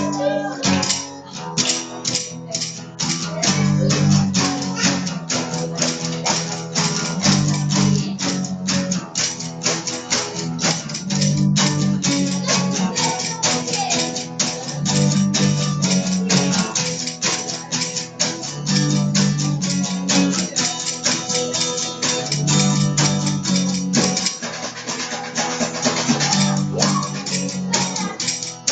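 Electric bass guitar playing a riff that repeats about every four seconds, with a fast, steady percussive rhythm alongside it.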